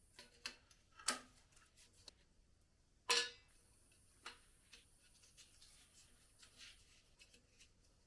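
Scattered light clicks and knocks in a small room, with two louder sharp clicks about one second and three seconds in.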